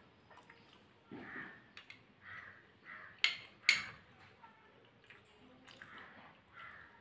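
Light handling of a glass serving bowl of banana pieces in sugar syrup: soft rustles and a few sharp clicks, the loudest two about half a second apart a little over three seconds in, as a metal spoon knocks against the glass.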